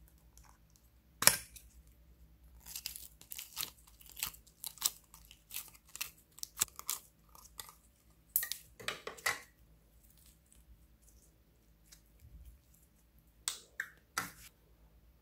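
A plastic container's lid clicking open sharply, then the sticky crackling and tearing of slime being pulled out of the container in a rapid run of little pops, with a couple of plastic clicks near the end.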